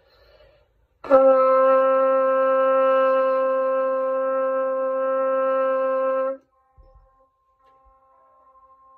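Trumpet holding one long, steady note about five seconds long: re (written D), fingered with valves 1 and 3. It starts about a second in and stops abruptly.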